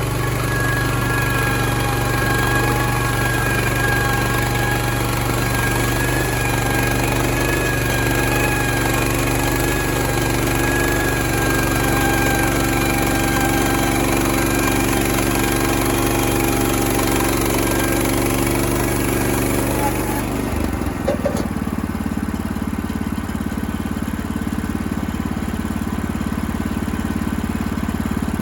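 Engine running steadily under a high hiss; about twenty seconds in the hiss drops away suddenly and the engine note changes.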